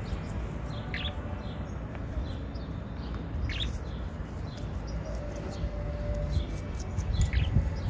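Birds chirping: many short, high chirps scattered through, with a few sharper down-sweeping ones about a second in, midway and near the end, over a steady low rumble.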